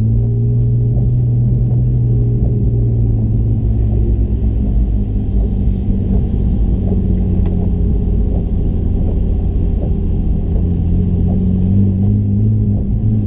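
Porsche engine running with a steady drone that climbs in pitch again near the end. It is being checked for misfires.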